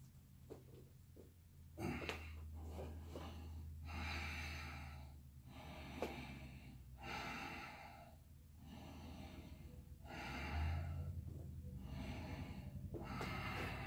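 A person's slow, audible breathing during a yoga flow: about five long breaths, each roughly a second and a half, with pauses between them. A steady low hum runs underneath, and a couple of soft knocks come about two and six seconds in.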